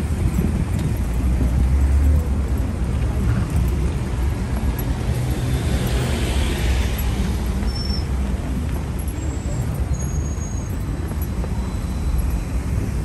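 Steady city road traffic, cars and buses running past with a low rumble of engines and tyres, swelling louder about halfway through as a vehicle passes close.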